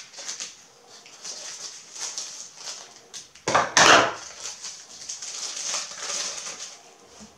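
Foil wrapper of a Mexican chocolate tablet crinkling and crackling as it is peeled open by hand, with one louder burst of crinkling about three and a half seconds in.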